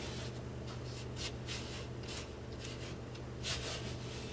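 Fingertips rubbing self-adhesive stress-crack tape down onto a wall corner, pressing it firmly along the edges: several faint scratchy strokes, the clearest about three and a half seconds in, over a steady low hum.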